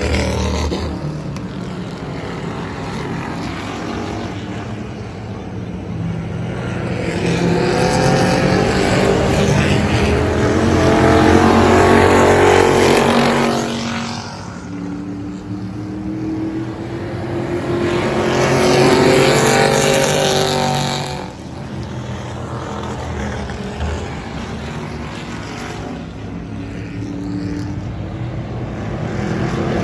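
Race car engines lapping a short oval track, the sound swelling twice as the cars come past, loudest about twelve and nineteen seconds in. Engine pitch climbs as they accelerate through the second pass, with a lower steady engine drone in between.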